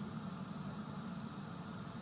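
Gas heater running: a steady hiss over a low, even hum from its fan.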